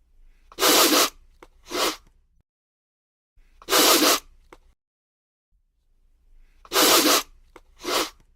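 Hedgehog huffing: five short, breathy hisses, in a pair, then one alone, then another pair.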